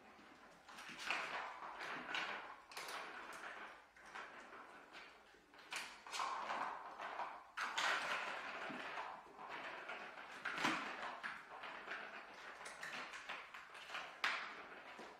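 Bengal kittens playing at a plastic cat track toy: irregular taps, clicks and clatter from paws and the ball in the plastic track on a wooden floor, coming in uneven bursts.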